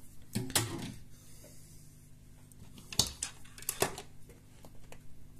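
Small tools being handled and set down on a workbench: sharp clicks and knocks about half a second in and again around three and four seconds in, over a steady low hum.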